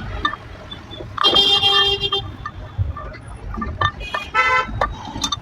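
Two vehicle horn honks: a loud toot about a second long starting a little over a second in, and a shorter second honk near four and a half seconds, over background road noise and a few sharp clicks.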